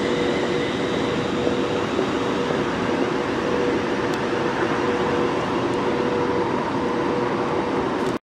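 London Midland Class 350 electric multiple unit running out along the far platform: steady running noise with a humming tone, whose higher tones fade in the first second or two.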